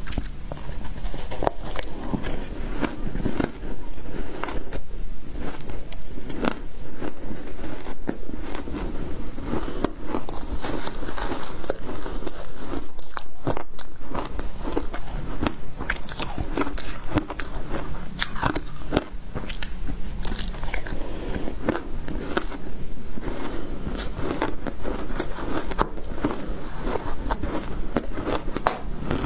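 Shaved ice dusted with matcha powder being bitten and chewed, a dense, irregular run of crisp crunches.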